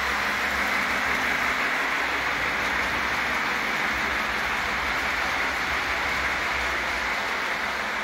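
Lionel Pennsylvania Flyer O gauge model train running around three-rail track, its wheels and motor making a steady, even rolling noise.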